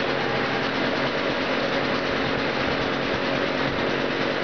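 Homemade propane-fired turbojet built from a Holset turbocharger, running steadily: an even, loud rush with a low hum under it.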